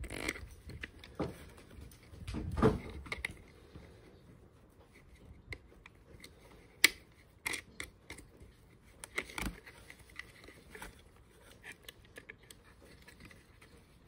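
Handling noises as a battery mini chainsaw is turned over in its cardboard box: rustling of packaging and sleeve with scattered light plastic clicks and knocks, the sharpest about seven seconds in.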